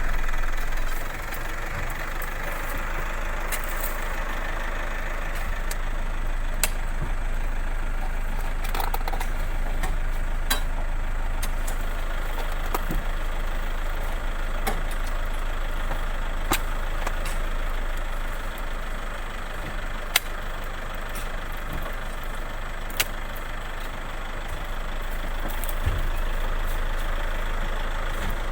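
Four-wheel-drive vehicle's engine idling steadily while stopped, with a handful of short, sharp knocks at irregular intervals.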